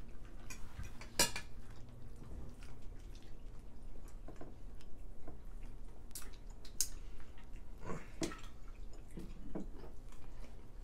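Scattered mealtime clinks and clicks of metal serving tongs and forks against plates, with wet chewing and lip-smacking sounds of people eating hot wings. The sharpest clink comes about a second in, and more follow in the second half.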